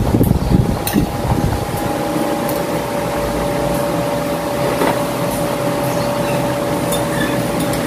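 A steady mechanical drone with a held tone running through it, and a few light clinks of spoon and fork against plates.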